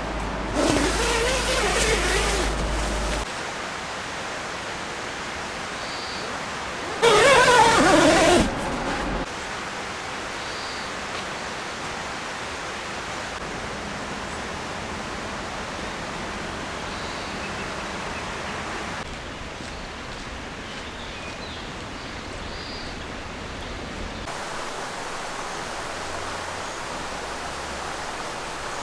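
Steady rush of a river flowing, with two short louder, wavering sounds over it, the louder one about seven seconds in.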